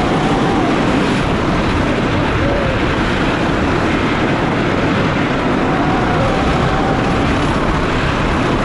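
Wooden roller coaster train running at speed along its track, heard on board: a loud, steady rumble of wheels mixed with rushing wind.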